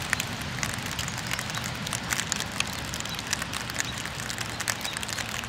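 Rain falling, a steady hiss with many irregular sharp drop ticks, some landing close to the microphone.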